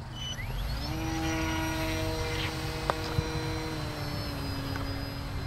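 Electric RC plane's Tower Pro 2408-21 brushless motor and propeller spooling up with a quickly rising whine, then running at a steady pitched drone as it flies, easing slightly lower in pitch after about three and a half seconds.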